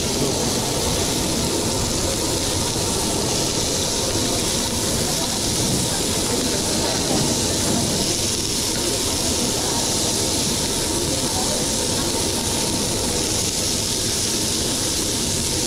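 Steady hiss over a low rumble: the running noise of a working restaurant kitchen.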